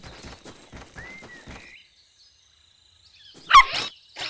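A cartoon puppy gives one short, loud bark about three and a half seconds in. Before it comes a run of soft electronic clicks and a brief chirping beep.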